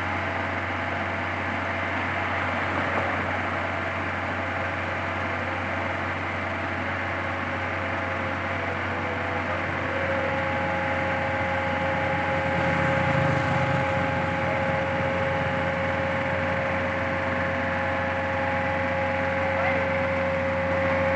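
Heavy diesel engine running steadily with a low hum. A steady whine joins in about ten seconds in.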